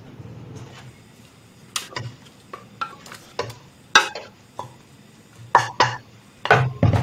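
Kitchen utensils knocking and scraping in a nonstick wok: ingredients tipped in from a food-processor jug and stirred with a plastic spatula, in a string of sharp, irregular clacks.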